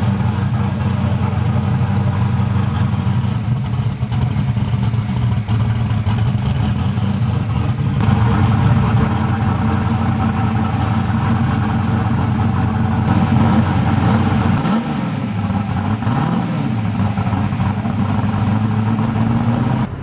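Ford Mustang Cobra V8 idling loudly and steadily, with two short revs of the throttle about three-quarters of the way through.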